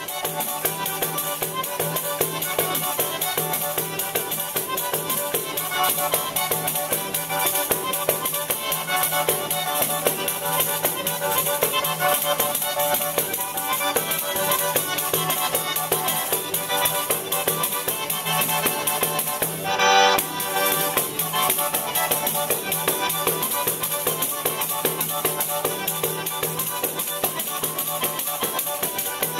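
Tarantella played on an organetto, a diatonic button accordion, with a tamburello frame drum keeping a steady beat and shaking its jingles. About two-thirds of the way through, a brief louder pitched sound stands out over the music.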